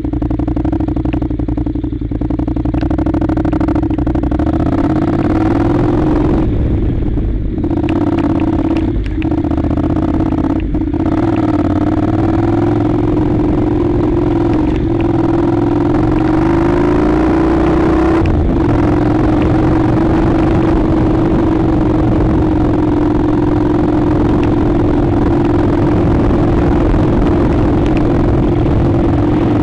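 Honda NC700's parallel-twin engine running at fairly steady low revs as the motorcycle rides a rough gravel track, its note rising and falling slightly a few times. There is wind rush, and repeated knocks and rattles from the bike jolting over stones, mostly in the first two-thirds.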